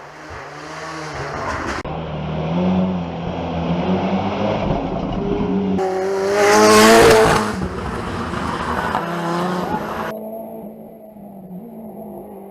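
Rally car's engine at full effort on a special stage, revs climbing and falling through gear changes. It peaks loudest about six to seven seconds in, then drops to a lower, quieter note about ten seconds in as the driver comes off the throttle.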